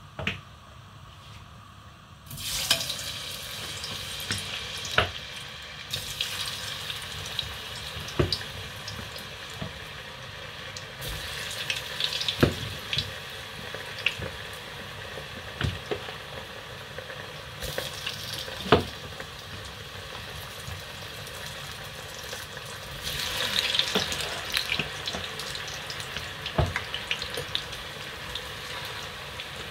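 A pot of hot oil sizzling as pieces of food are dropped in to deep-fry. The sizzle starts suddenly about two seconds in and surges twice as more pieces go in, with sharp clicks of a metal slotted spoon against the pot.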